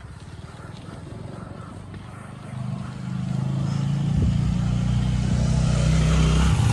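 A motor vehicle's engine running steadily, growing louder from about halfway through as it comes close.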